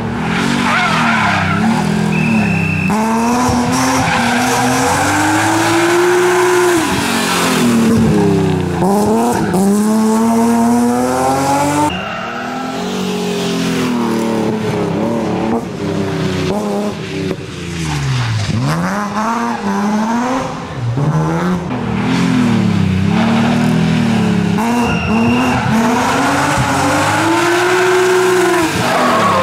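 BMW M3 E36 rally car's straight-six engine revving hard under full throttle, its pitch climbing and dropping again and again with gear changes and lifts, with tyres squealing through the corners.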